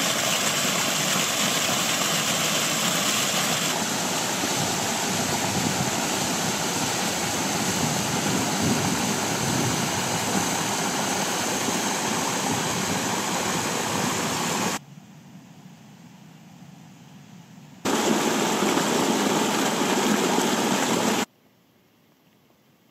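Mountain stream and waterfall rushing over rocks, a steady loud wash of water. It drops to a much softer sound for about three seconds, comes back, and near the end cuts off abruptly to near silence.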